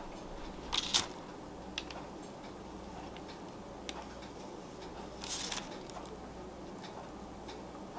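Faint scratching and light ticks as a bread lame slices slits into a floured dough round on parchment paper, over a low steady room hum.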